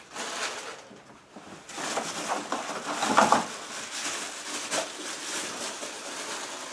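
Plastic wrapping and cardboard packaging rustling and scraping as a wrapped cookware pot is lifted out of a cardboard box. The sound comes in uneven crackles, loudest a little past three seconds.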